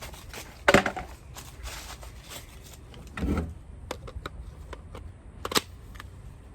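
Clicks and knocks of a cordless power saw being handled while its battery pack is fitted: a loud sharp snap about a second in, a dull thud partway through and a few small ticks.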